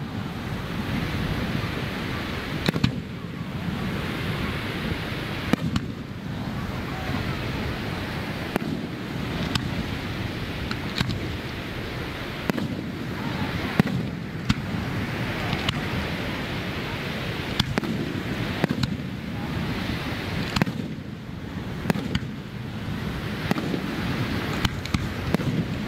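Aerial firework shells bursting in a long irregular series of sharp bangs, one every second or two, over a steady rushing background noise.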